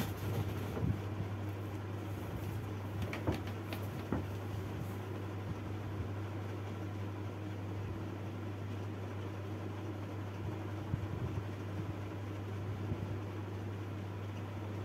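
Steady low hum under a constant hiss, with a few faint clicks in the first few seconds.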